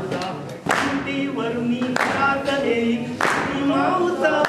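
A group of men singing a Marathi song together without instruments, clapping along on the beat about once a second.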